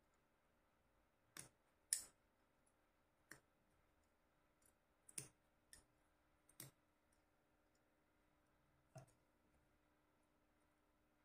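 Large steel tailor's scissors snipping through a thick sewn cotton seam: several faint, sharp snips at irregular intervals, the loudest about two seconds in.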